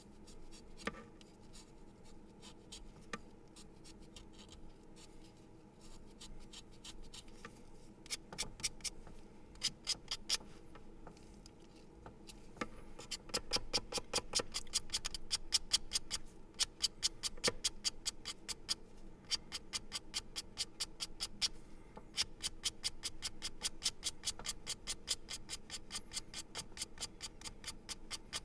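A pencil being sharpened: scattered quiet scrapes and clicks at first, then from about eight seconds in a fast, even run of small scraping ticks that grows louder after about twelve seconds, with brief pauses.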